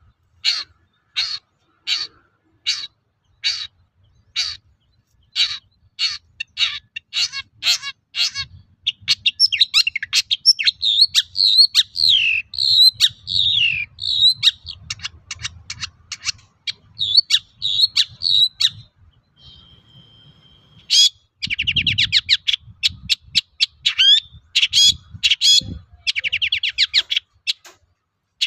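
Long-tailed shrike singing in full song. It gives a run of single sharp notes, spaced and quickening, then breaks into a fast jumble of varied chirps and gliding notes, one short held whistle, and rapid rattling trills near the end.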